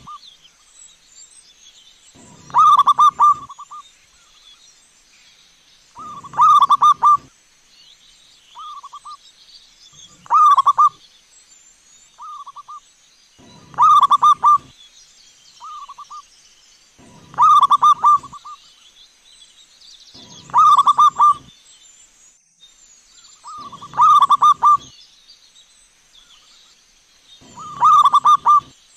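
Zebra dove (perkutut) singing its cooing song over and over: a phrase of quick coo notes about a second long, repeated roughly every three and a half seconds, with shorter, softer coos between some phrases.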